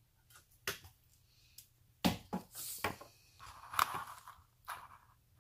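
Handling noise from a pearl necklace: a few light clicks and taps, with soft rustling in the second half.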